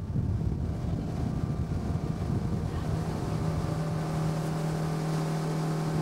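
Motorboat engine running under way, with wind buffeting the microphone; a steady engine hum comes up about three seconds in.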